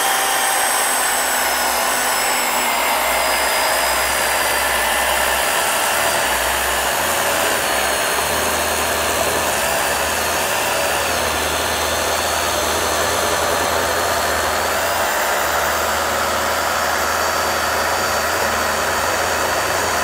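DeWalt FlexVolt battery chainsaw fitted with a ripping chain, running steadily under load as it rip-cuts lengthwise along a hardwood log. Its high electric whine wavers a little in pitch as the chain bites.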